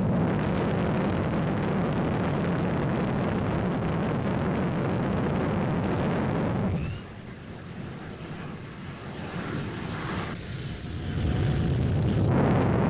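YF-16's Pratt & Whitney F100 turbofan jet engine running loud and steady. About seven seconds in it drops to a lower, rougher level, then swells loud again near the end.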